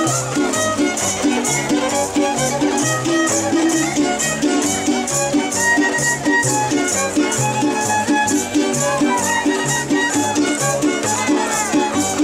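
Traditional folk dance music: a melody over an alternating bass line, with a steady high shaking beat about three times a second.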